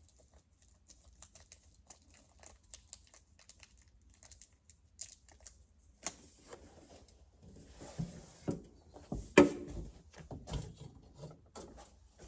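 Small clicks and rustles of screws, plastic wall anchors and packaging being handled and sorted by hand. Faint and sparse at first, busier and louder from about halfway, with one sharper knock about three quarters in.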